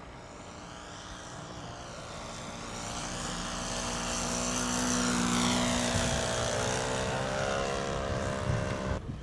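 Radio-controlled aerobatic model airplane's propeller and motor running steadily as it flies a low pass. It grows louder to a peak about five seconds in, then eases off slightly.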